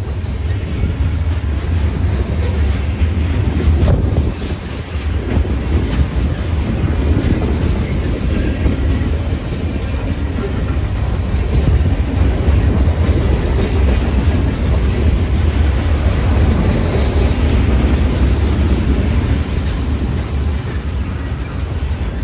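Freight train of covered hoppers and boxcars rolling steadily past close by: a continuous heavy rumble of the cars, with steel wheels running on the rails.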